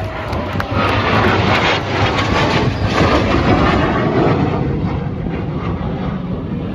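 CF-18 Hornet jet fighter passing low overhead: a loud rushing jet roar with crackle that builds about a second in, peaks, then slowly fades as it moves away.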